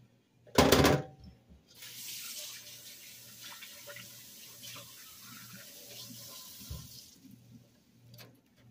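Kitchen tap running into a stainless-steel sink for about five seconds, after a single loud bump just before it.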